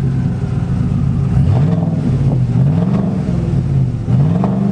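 Whipple-supercharged 6.2-litre V8 in a Chevrolet Silverado running through its aftermarket exhaust just after starting up. It gives a low, steady exhaust note whose pitch swells and drops a few times with light blips of the throttle.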